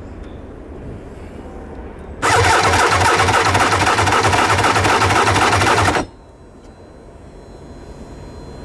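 Starter motor cranking the 1998 Tigershark TSR 1000's three-cylinder two-stroke engine for a compression test, with a low pulse about three times a second. It runs for about four seconds and cuts off suddenly. The rear cylinder reads about 135 psi, fair compression for a used engine.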